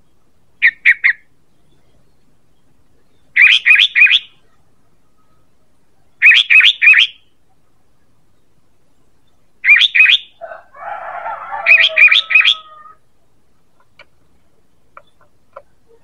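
Sooty-headed bulbul (kutilang) calling: five short, loud phrases of three or four quick notes each, a few seconds apart, with a lower, scratchy chatter between the last two phrases.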